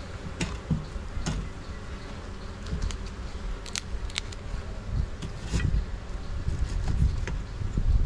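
Honey bees buzzing steadily around an open hive, with about half a dozen sharp clicks and scrapes of a metal hive tool against the wooden frames, over a low rumble.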